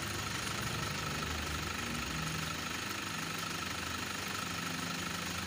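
A motor running steadily at an even level, with a faint high whine above its low hum.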